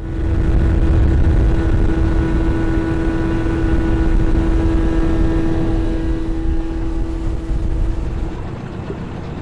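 Tiller-steered outboard motor running at speed on a small aluminium fishing boat, a heavy low rumble with a steady whine held at one pitch. Near the end the whine stops and the sound eases off.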